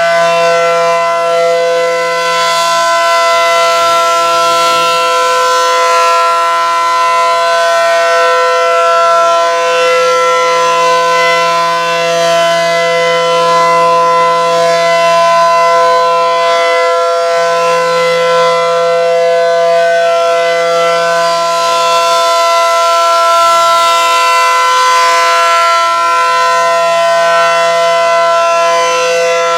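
ACA Allertor 125 outdoor warning siren sounding its test, very loud, holding one steady pitch with no wind-up or wind-down. Its tone swells and fades every few seconds as the siren head rotates.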